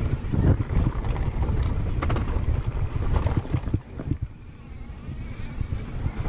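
Mountain bike descending a dry dirt trail: wind buffeting the camera's microphone over a low rumble of tyres on dirt, with scattered rattling knocks from the bike over bumps. The noise drops off about four seconds in, then builds again near the end.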